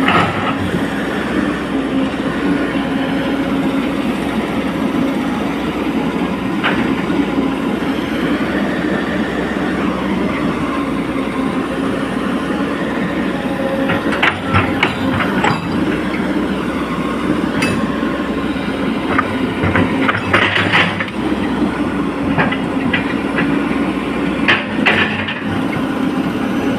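Hydraulic excavator at work, its diesel engine and hydraulics running with a steady hum, broken by clusters of metal clanks and squeaks about halfway through, again about three-quarters through, and near the end.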